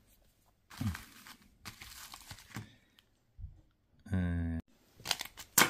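Plastic parcel packaging rustling and crinkling as it is handled and torn, ending in sharp, loud crackles near the end. A short, steady pitched tone sounds about four seconds in.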